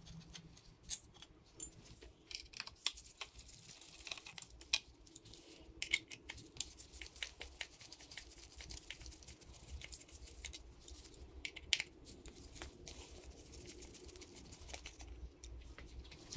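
Hand tools and small metal parts clicking, tapping and scraping at irregular intervals as a dirt bike's chain guard is unbolted and removed.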